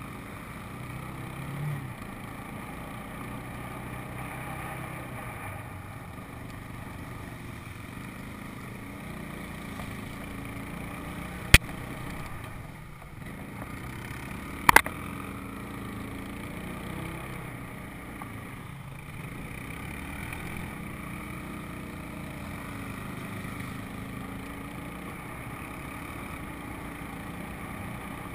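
Four-wheeler (ATV) engine running under way, its note rising and falling a little with the throttle. Two sharp knocks, about three seconds apart, stand out near the middle.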